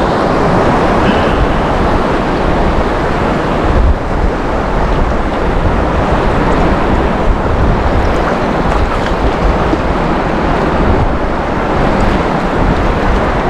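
Steady rush of wind buffeting the microphone over choppy surf, with waves and water sloshing around the wader.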